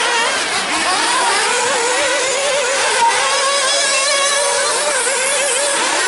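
Several 1/8-scale nitro off-road buggies running together, their small two-stroke glow-fuel engines whining at high revs. The overlapping pitches keep rising and falling as the cars accelerate and back off around the track.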